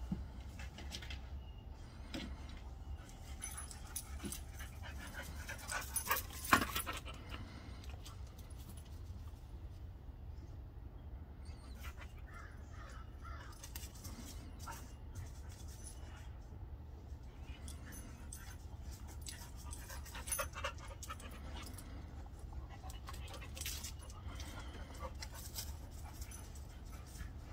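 Two dogs play-fighting, with intermittent dog vocal sounds and scuffling; the loudest burst comes about six seconds in.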